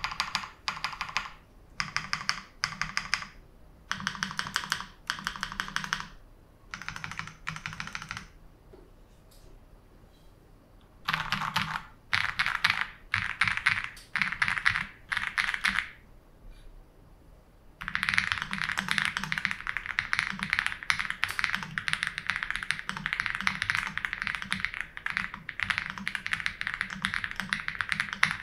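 Typing on a custom Akko mechanical keyboard: several short bursts of keystrokes with pauses between them, then about two-thirds of the way in, steady fast typing that keeps going.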